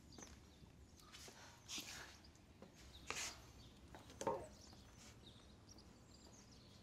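Near silence: quiet ambience at an open doorway, broken by a few soft rustles and one faint short sound about four seconds in.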